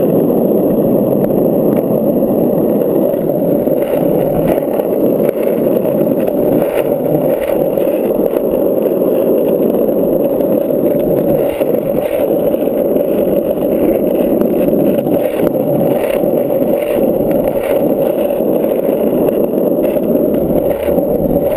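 Skateboard wheels rolling over asphalt in a steady, loud rumble, with occasional small clicks and knocks from bumps in the road surface.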